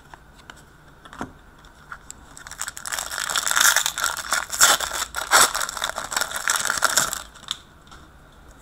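Crinkling and rustling of hockey trading cards and their packaging being handled, a few seconds of dense crackle with small clicks starting about two seconds in, after a few isolated ticks.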